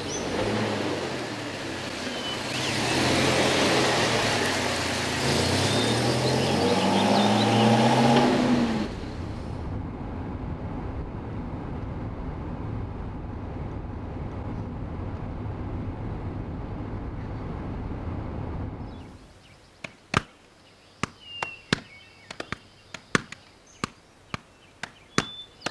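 Kia Morning hatchback driving past on a road, its engine pitch rising and falling, loudest from about three to eight seconds in. About nine seconds in it changes to a steady drone heard inside the moving car. In the last six seconds come sharp, irregular knocks of tennis balls being hit, with faint bird chirps.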